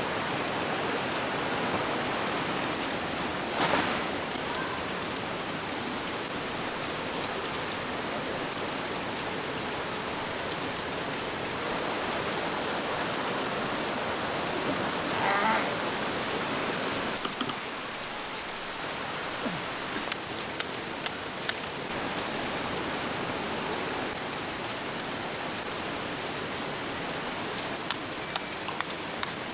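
Fast-flowing mountain stream swollen by monsoon rain, a steady rushing of water, swelling briefly twice. In the second half, scattered sharp ticks sound over it.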